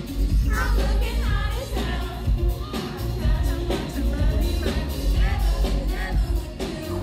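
Live pop music: a female singer singing into a microphone over a band with heavy bass, a drum beat and electric guitar, heard from the audience.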